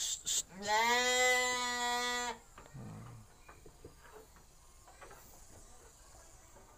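Sheep bleating once: a single long, steady-pitched baa of nearly two seconds, starting about half a second in.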